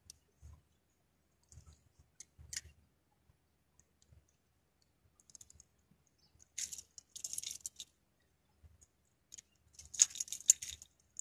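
Small clicks and rattles from a spinning reel and rod being handled, in short bursts, busiest and loudest about ten seconds in.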